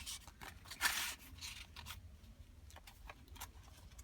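Paper rustling and sliding as the coffee-dyed pages, pockets and tags of a handmade journal are handled, with a sharper swish about a second in and lighter rustles after.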